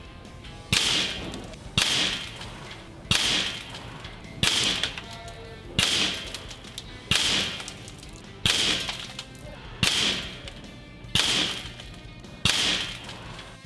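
Ten shots from a Weihrauch HW44 pre-charged pneumatic air pistol, each a sharp crack with a short fading tail, about one every 1.3 seconds, over background music.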